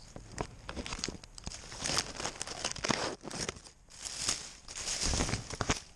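Close, irregular rustling and crunching as a cat moves over dry ground cover, picked up by the GoPro strapped to it, in uneven bursts with the loudest near the end.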